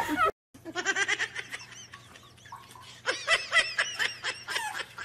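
A person giggling in short, high laughs, busiest about three to four and a half seconds in. At the very start, the tail of a cat's yowl is cut off abruptly.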